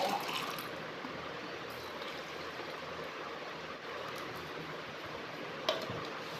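Steady background hiss, with one short knock about five and a half seconds in as the plastic blender jar is set down on the floor.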